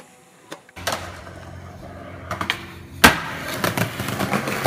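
Skateboard wheels rolling over concrete with a rough rumble, broken by a few board clacks and one loud sharp pop or impact of the board about three seconds in.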